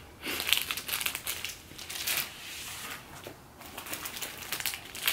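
Plastic packaging and wrapping crinkling and rustling as items are handled, in short irregular bursts with a few light clicks.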